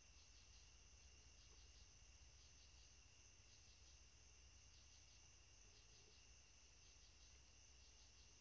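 Faint, steady chorus of night insects: an even high trill with a second, lower band of song, over a low hum.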